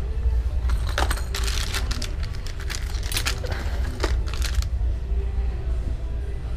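Small wheeled plastic shopping basket clattering and rattling as it is pushed over a hard store floor, with rapid clicks for a few seconds over a low steady rumble of the wheels rolling.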